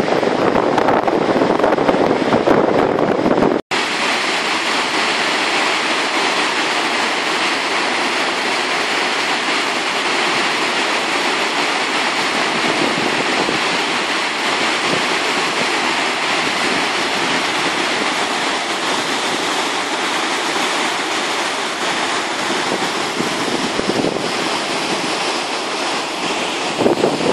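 Gullfoss waterfall's steady roar of falling water. For the first few seconds wind buffets the microphone, and then the sound cuts to the even roar.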